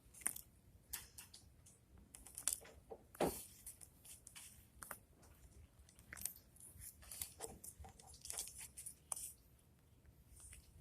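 Faint, irregular small clicks and rustles, scattered through the quiet.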